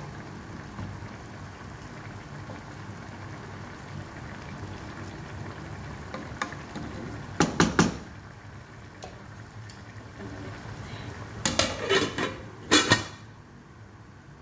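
Pot of vegetable stew simmering while a wooden spoon stirs it. About seven and a half seconds in, three quick knocks as the spoon is tapped on the pot's rim, then around twelve seconds a metal lid clatters onto the pot.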